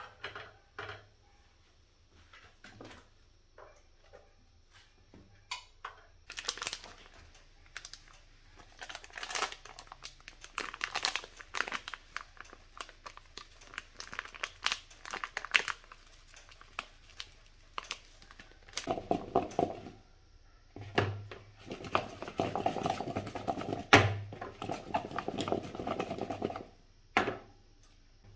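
Food-prep handling sounds. A plastic packet crinkles and rustles as seasoning powder is shaken from it over cut potato wedges. Later, a denser stretch of clattering and rattling comes as the wedges are tossed in a plastic bowl to coat them.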